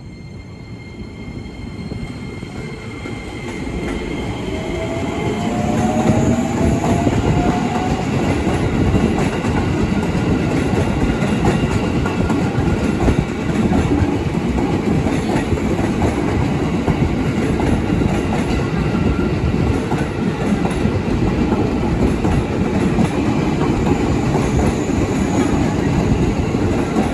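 Train approaching and running past, growing louder over the first several seconds, then a steady loud rumble of wheels clattering over the rail joints.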